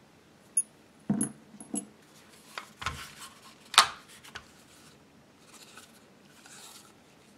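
Clicks, clinks and knocks of small gun parts being handled and set down during disassembly: small metal screws and the polymer foregrip of a BRS-99. About a dozen separate strikes come over the first four and a half seconds, the loudest a sharp knock about four seconds in. Soft rubbing follows as the foregrip is turned in the hands.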